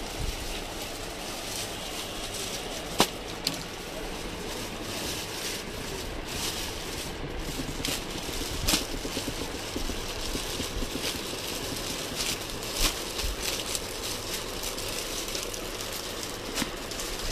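Steady background room noise with faint rattling, broken by a few sharp clicks, the loudest about three seconds in.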